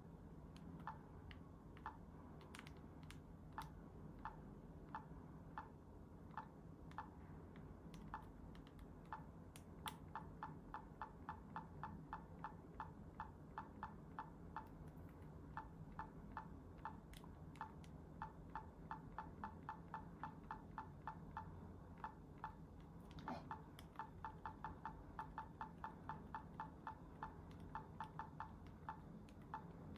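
Small plastic button clicks from a Cisco Flip Ultra camcorder's control pad. They are pressed one at a time at first, then in long quick runs of about four a second while stepping through the date settings.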